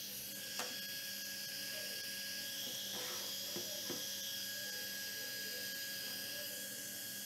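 Small motor-driven fan of a blö wearable cooling device running with its mesh and honeycomb grille removed: a steady high-pitched whine over a whirr. The remaining noise comes mainly from motor vibration. A few light knocks from handling the unit are heard about half a second in and near the middle.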